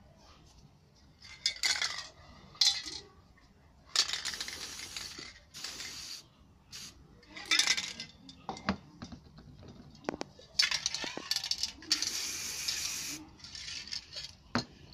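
Aerosol spray paint cans hissing in several short bursts, the longest about a second and a half, with sharp clicks and knocks of the metal cans being handled and set down between sprays.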